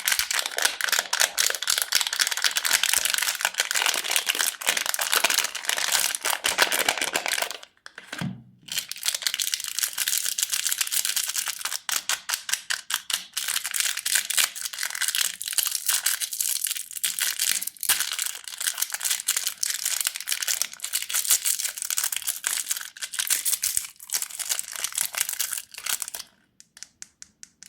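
Plastic candy wrappers crinkling and crackling as wrapped candies are handled, a dense stream of small crisp crackles. It pauses briefly once with a soft thud and stops near the end.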